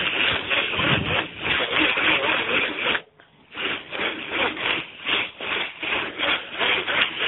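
Rushing, rasping noise of wind and rubbing on the microphone of a camera carried while cycling, pulsing about three times a second, with a brief drop-out about three seconds in.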